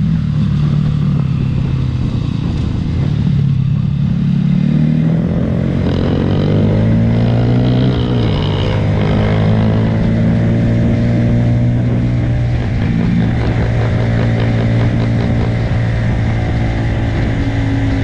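Motorcycle engine heard from on board, rising in pitch as it accelerates, dropping suddenly at an upshift about eight seconds in, then running steadily at speed.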